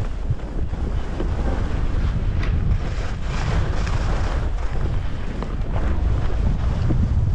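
Wind rushing over the microphone during a fast descent down a ski run: a steady, loud rumbling buffet with no break.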